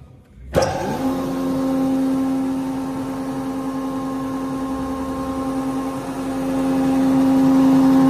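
Hammer A3 31 planer-thicknesser with a three-knife cutterhead switching on about half a second in, spinning up quickly, then running with a steady whine; it grows louder in the last couple of seconds.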